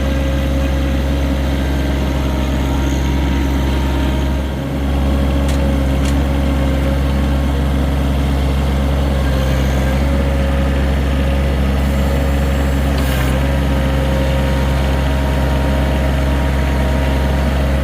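John Deere 1023E compact tractor's three-cylinder diesel engine running steadily, with a brief dip in level about four and a half seconds in and a few faint clicks.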